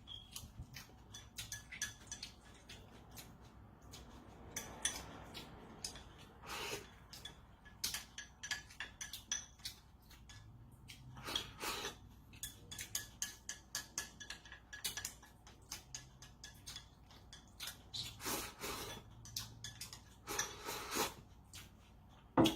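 Utensils clicking and scraping lightly against dishware, many small irregular clicks, while the cooked greens are eaten.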